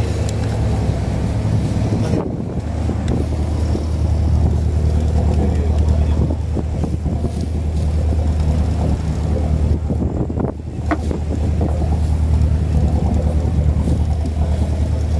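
A fishing boat's motor running steadily with an even low hum.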